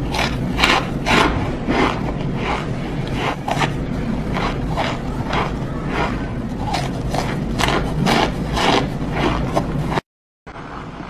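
Raw cornstarch squeaking and crunching as it is eaten by the handful, a run of short crisp crunches about two or three a second that cuts off about ten seconds in.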